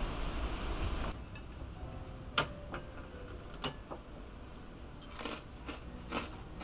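Crisp ginger biscuit being broken apart by hand over a ceramic plate: a scattering of small sharp snaps and clicks, the loudest about two and a half seconds in.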